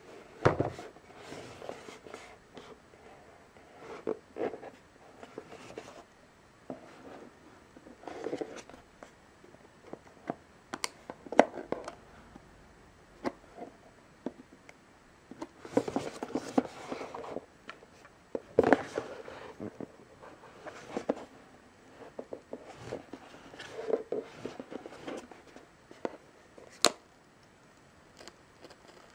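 Camera retail packaging being handled and opened: a cardboard sleeve and a clear plastic display case scrape and rustle in irregular spells, with a few sharp clicks.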